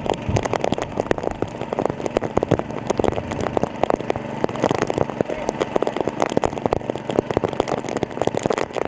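Small engine-driven water pump running steadily, under a dense, irregular crackle of rain.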